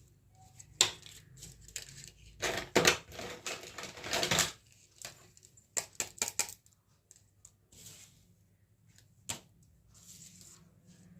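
Small plastic toy kitchen pieces being handled. They give irregular sharp clicks and clatter, with a burst of scraping and rattling a few seconds in and a quick run of clicks a little later.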